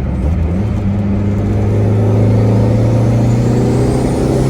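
Turbocharged car engine accelerating hard, heard from inside the cabin: the engine note climbs steadily, and over the second half a faint high turbo whistle rises in pitch alongside it.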